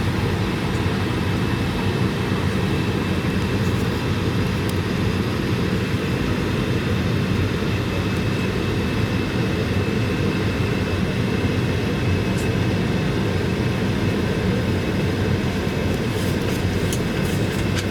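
Cabin noise of an Airbus A220-300 with its Pratt & Whitney PW1500G geared turbofan engines running: a steady low rumble with a faint steady high tone over it. A few faint clicks near the end.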